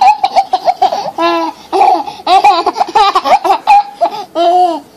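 Baby laughing in a run of high-pitched peals, one burst after another.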